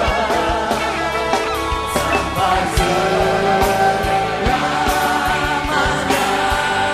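Live worship music: a male lead vocalist and a congregation singing over a band with regular drum hits.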